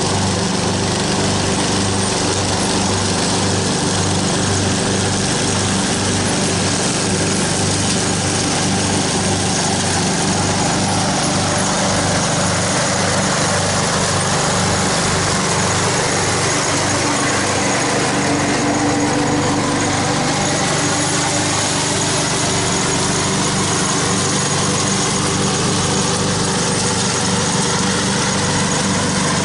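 Craftsman riding lawn mower's engine running at a steady speed as it mulches dry leaves, with a rush of hiss about two-thirds of the way through.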